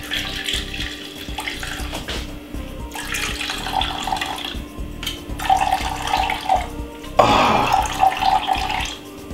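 Freshly blended sugar cane juice trickling in a thin steady stream from a mesh strainer into a glass measuring jug, liquid splashing into the juice already there.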